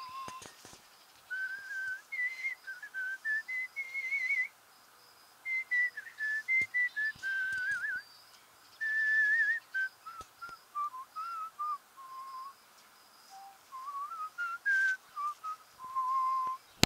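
A man whistling an old tune by mouth, phrase by phrase with short pauses. The notes waver slightly, and the tune ends on a long, lower held note.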